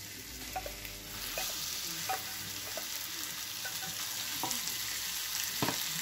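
Marinated chicken pieces sizzling as they go into a hot pan of olive oil, the sizzle swelling about a second in as more chicken lands. A few short knocks come from a spatula scraping the chicken out of its dish and stirring it in the pan.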